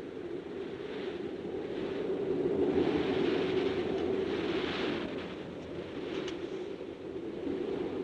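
Strong wind blowing steadily across tall grass, swelling in a gust through the middle and easing off toward the end.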